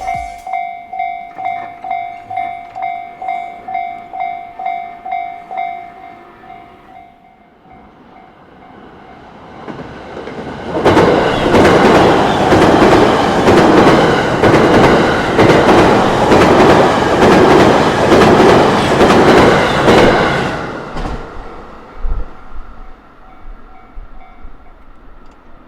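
Japanese railway crossing warning bell ringing about twice a second, which stops about six seconds in. A JR Takasaki Line train then approaches and passes at speed, with a steady, rhythmic clatter of wheels over the rail joints for about ten seconds before it fades away.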